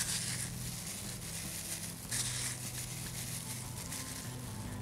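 A steady low electrical hum with two faint, brief rustles, one near the start and one about two seconds in.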